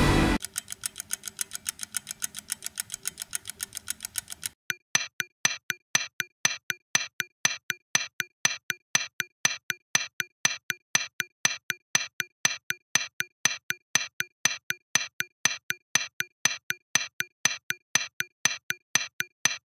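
Clock-like ticking, quick and perfectly even: about six ticks a second at first, then, about four seconds in, sharper and brighter ticks at about four a second. Background music cuts off right at the start.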